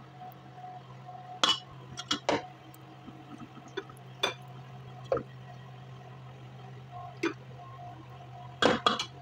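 Scattered light clinks and knocks of dishes, about eight short sharp sounds with a few bunched together near the end, over a steady low hum.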